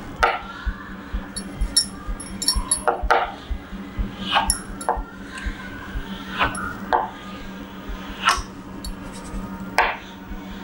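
Chalk tapping and scraping on a blackboard as wavy lines are drawn, in irregular sharp strokes, with a few short high squeaks in the first few seconds.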